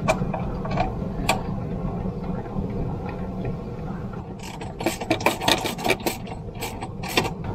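A hand ratchet wrench clicking in quick runs, about four to five clicks a second, from about halfway through as a bolt for a motorcycle belt tensioner is turned in. A few single metal clicks come before it, over a steady low hum.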